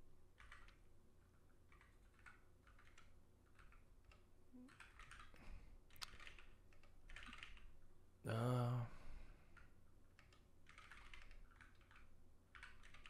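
Fast, irregular keystrokes on a ZSA Moonlander split keyboard during timed typing practice, in faint clusters of clicks. About eight seconds in, a short vocal sound from the typist rises above them.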